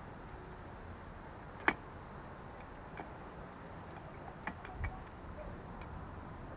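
A few light metallic clinks and taps of tools and transfer case parts being handled, spaced irregularly: a sharp clink about a second and a half in is the loudest, then several softer ones later, one with a dull thump.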